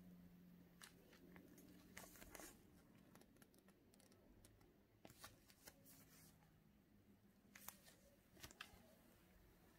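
Near silence with faint, scattered rustles and clicks of fingers handling a knit beanie and its fabric and paper labels, over a faint low hum.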